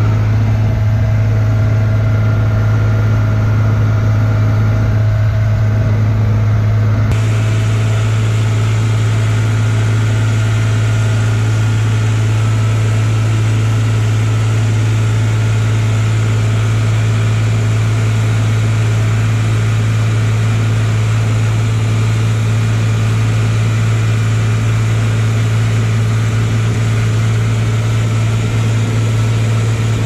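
IHC 353 tractor's diesel engine running at a steady, unchanging pace while the tractor drives along the road, heard loud from the driver's seat.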